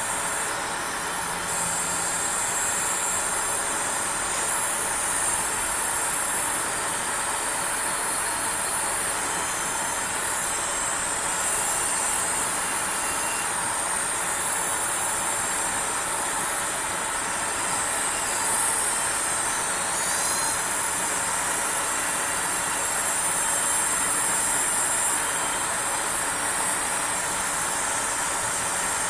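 Graphics card coil whine: a high-pitched electrical whine and buzz from the card's inductors, its pitch shifting now and then, over a steady hiss.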